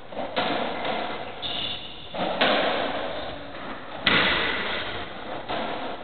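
Racketball rally on a squash court: about four sharp hits of racket on ball and ball on wall, each ringing on in the court. A short high shoe squeak on the wooden floor about one and a half seconds in.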